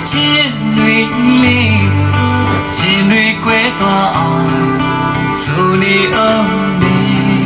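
A country-style song with guitar, a steady bass line and a singing voice, played back through the Ceflar M1110 soundbar and its subwoofer as a sound test.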